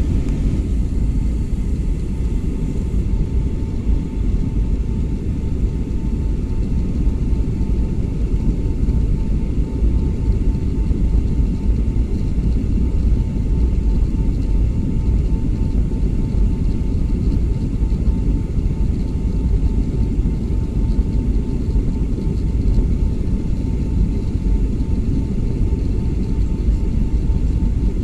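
Steady low rumble of a Boeing 757-200's engines and airflow heard from inside the passenger cabin, with a faint steady whine above it.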